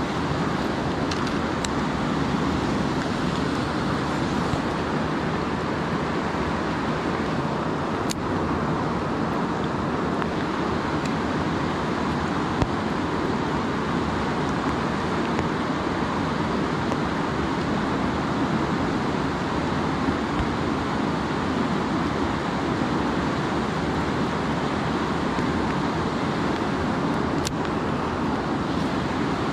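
River water rushing steadily over rocks and through rapids, with a few faint clicks.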